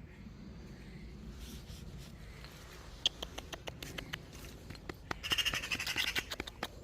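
A fox eating cat food: a quick run of sharp chewing clicks and crunches that starts about three seconds in and grows denser near the end.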